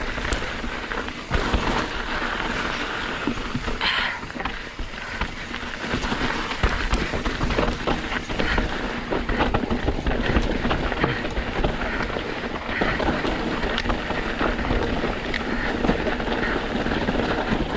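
Mountain bike riding over a rocky trail: tyres rolling on rock and gravel while the bike rattles and clatters with many small knocks, with wind buffeting the microphone.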